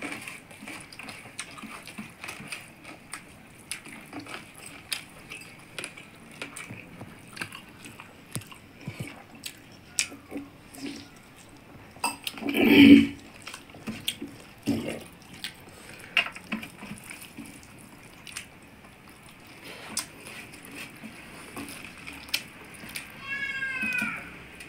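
Eating sounds: fingers squishing and mixing rice and chicken curry on steel plates, with chewing and lip smacks as many small clicks and smacks. A louder short sound about halfway through, and a high call that bends up and down in pitch near the end.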